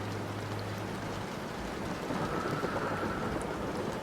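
Steady rain falling, an even hiss of drops, with a low rumbling swell coming in about halfway through.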